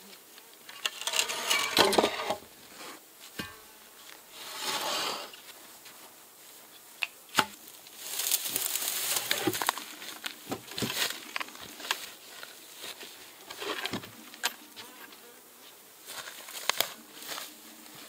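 Honeybees buzzing around the open hives, with rustling, scraping and a few sharp knocks and clatters as wooden hive boxes and gear are handled and moved about.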